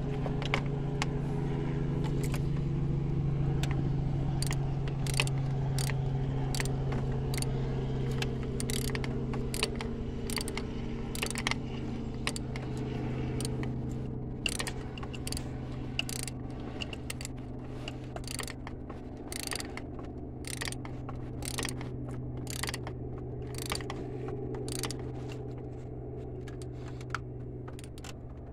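Hand ratchet clicking in short strokes as bolts are tightened down, sharp irregular clicks over a steady low hum.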